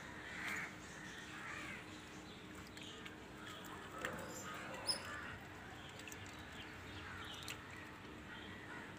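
Faint outdoor ambience with a few distant bird calls, short and spaced out, and a couple of small clicks.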